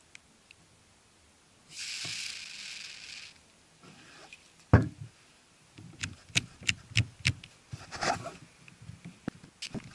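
Aerosol can of contact-cleaner spray hissing in one steady burst of about a second and a half, sprayed onto a camera's thumb wheel. A sharp thump follows a few seconds in, then a run of quick clicks and knocks from handling the camera and can.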